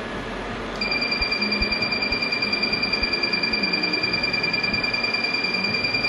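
Laser hair-removal machine beeping as its handpiece fires. A high tone starts just under a second in and pulses rapidly and evenly, about six beeps a second.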